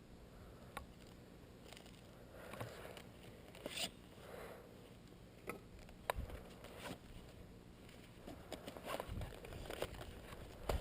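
Faint rustling and scraping with scattered sharp clicks, like clothing, gear and footsteps shifting in undergrowth.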